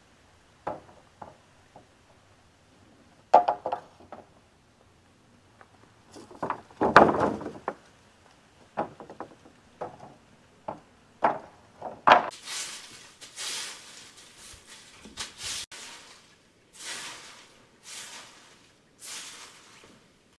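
Wooden construction boards being handled on sawhorses, knocking and thudding against each other and the wood, with a heavier thud about seven seconds in. From about twelve seconds on, a run of rough scraping strokes, each lasting about a second.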